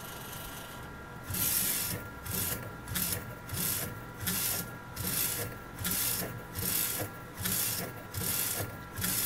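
MP5i direct-to-garment printer at work: after a steady hum, about a second in, the print carriage starts its printing passes, a rhythmic swishing about every three-quarters of a second, with the mechanism's faint steady whine underneath.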